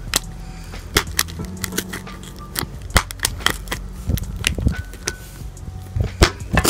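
Pen tip stabbing and scraping through plastic packing tape on a cardboard box: irregular sharp clicks, snaps and crackles, a dozen or so, over a steady low hum.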